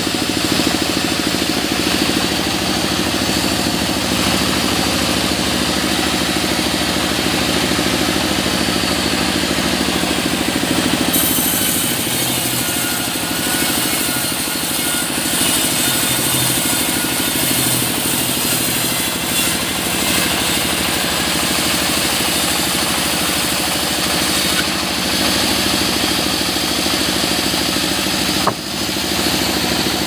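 A band sawmill running steadily as mahogany logs and boards are fed through its blade. A higher hiss joins about a third of the way in.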